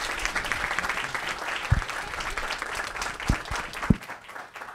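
An audience applauding, the clapping thinning out and fading near the end, with a few low thumps in between.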